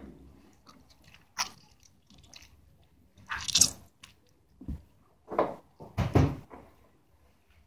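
Homemade glue-and-borax slime squelching and popping as it is squeezed and pulled apart by hand: a handful of separate wet squishes at irregular moments, the most prominent about three and a half seconds in.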